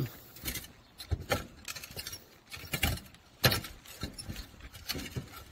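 Footsteps on concrete roof tiles: irregular light knocks and clinks with some rubbing, one sharper knock about three and a half seconds in.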